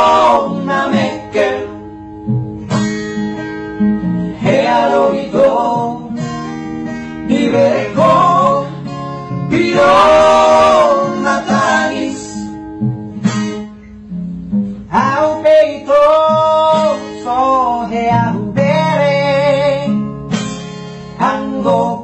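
Music: a song by a vocal trio, voices singing phrase after phrase over acoustic guitar accompaniment.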